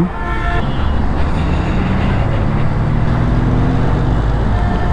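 Honda ADV 160 scooter's single-cylinder four-valve engine running steadily while ridden in slow, heavy traffic, under wind and road noise and the rumble of nearby buses and trucks. A brief higher tone sounds just after the start.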